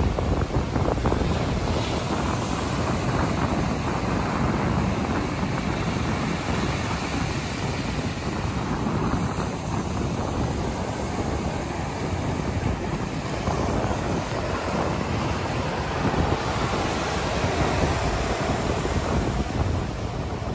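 Atlantic surf breaking and washing up over wet sand, with wind buffeting the microphone as a steady low rumble under the wash.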